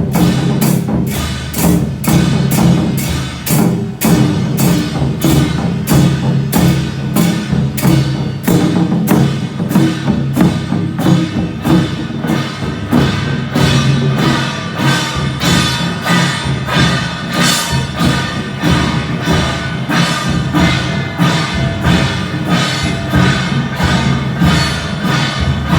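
Temple procession music: percussion struck on a steady beat of about two strokes a second over sustained pitched tones.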